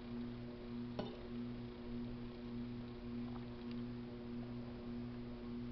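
A metal fork clinks once sharply against a plate about a second in, followed by a couple of fainter taps while forking macaroni salad. A steady low electrical hum runs underneath.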